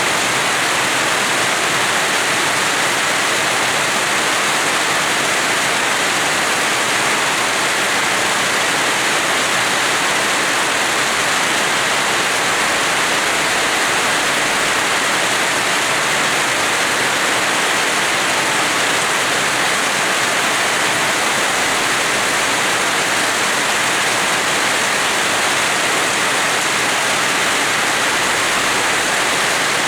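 Rain falling steadily, an even hiss without separate drops or thunder.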